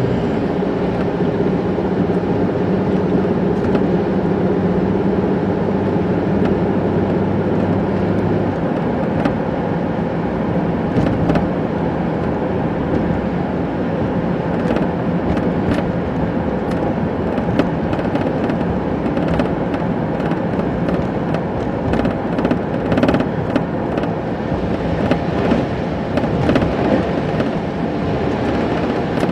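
Inside a car's cabin while driving on a wet, slushy road: steady road and tyre noise with an engine hum that drops away about a third of the way through, and scattered small ticks later on.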